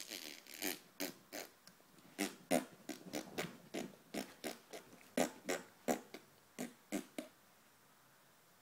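A person making a quick string of short, sharp mouth noises, about three a second, stopping about a second before the end.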